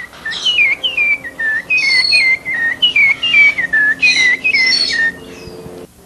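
A man whistling through his hand at his mouth, imitating the song of the rufous-bellied thrush (sabiá-laranjeira). It is a run of short whistled notes, each falling in pitch, about three a second, stopping about five seconds in.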